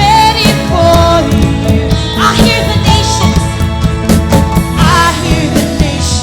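A song with a singing voice over drums and bass, playing continuously.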